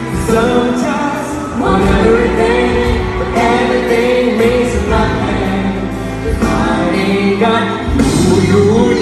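A man and a woman singing a duet into a shared microphone, with instrumental backing.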